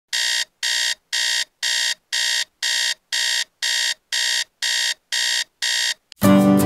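Digital alarm clock beeping, about two short high beeps a second, cutting off near the end; guitar music starts right after.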